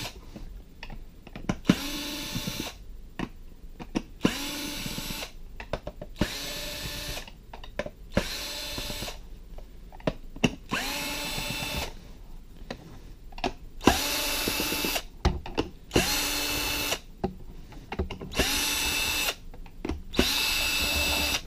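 Cordless drill used as a screw gun, backing out Phillips screws from a mannequin arm's plastic casing in about ten short runs, each winding up in pitch and then holding steady, with small clicks between runs.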